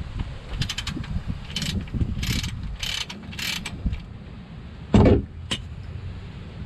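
Wind buffeting the microphone in low gusts, with a run of short hissing and rattling bursts in the first few seconds and one loud knock about five seconds in, followed by a small click.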